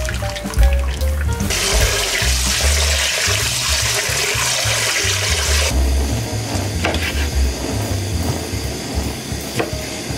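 Hot beef shank broth poured through a stainless steel sieve into a pot: a steady splashing pour that cuts off sharply a little past the middle. A couple of soft knife cuts through boiled beef on a wooden board follow, over background music with a steady low beat.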